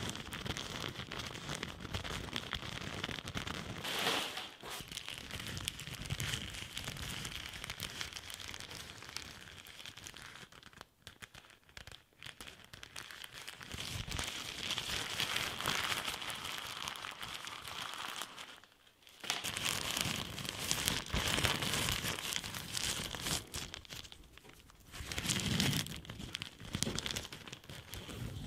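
Thin, crinkly ultralight tent material (a translucent bag and a yellow nylon stuff sack) crumpled and rubbed between the fingers close to the microphone, in irregular crinkling with short lulls about eleven and nineteen seconds in.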